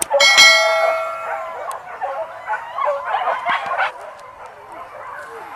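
Hunting dogs baying and yelping on a wild boar's trail. A loud, held high-pitched cry starts about a quarter-second in and lasts over a second. It is followed by a run of shorter, wavering yelps that fade out about four seconds in.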